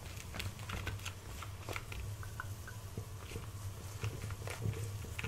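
Knife spreading garlic butter over a crisp, hot naan: irregular scraping and crackling clicks, over a steady low hum.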